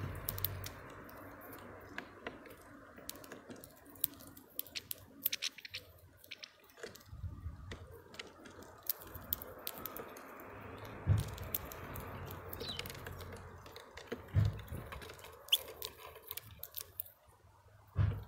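European goldfinches and a greenfinch cracking and pecking at sunflower seeds on a feeder tray close to the microphone: rapid, irregular small clicks and crackles. A few dull thumps come partway through.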